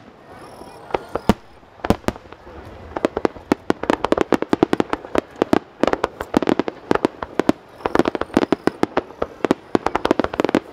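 Fireworks display: aerial shells bursting, a few spaced bangs at first, then a dense, rapid barrage of bangs from about three seconds in.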